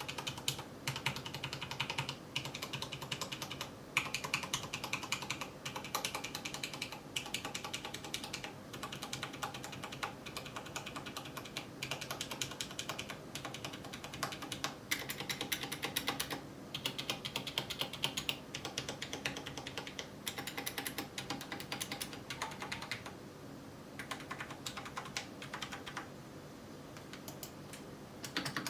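Mechanical keyboard with Cherry MX Brown switches being typed on quickly and continuously: a dense run of keystroke clicks and key bottom-outs, thinning briefly about two-thirds of the way through.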